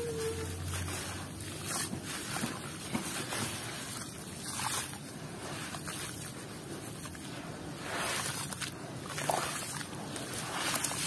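Hands crumbling wet sandy blocks into water in a plastic basin and squishing the muddy slurry: sloshing and squelching with a few louder swishes.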